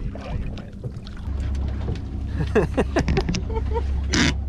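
Boat motor running with a steady low hum. A few short gliding pitched sounds come in the middle, and a brief rush of noise near the end.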